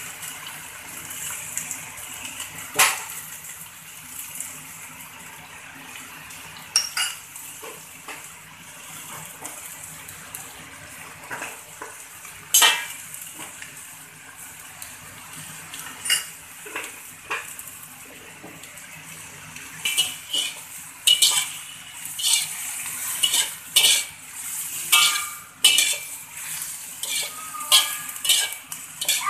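Slotted metal spatula scraping and clanking against a metal wok while mustard greens are stir-fried, over a steady frying sizzle. The strokes come now and then at first, then fast and frequent from about two-thirds of the way in.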